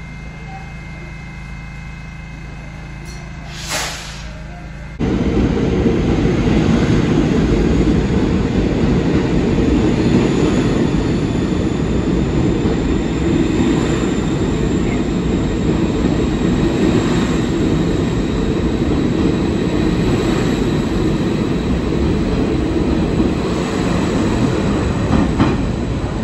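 New York City subway train standing at the platform with a steady hum, and a brief sharp sound about four seconds in. Then, from about five seconds in, a subway train runs loudly past the platform: a steady rumble of wheels on rail with occasional clacks, easing off near the end as it clears the station.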